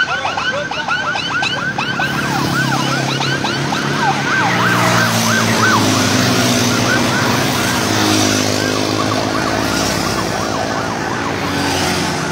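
Police motorcycle sirens yelping in fast rising-and-falling sweeps, several at once, thinning out after the first half. Beneath them runs the steady drone of vehicle engines.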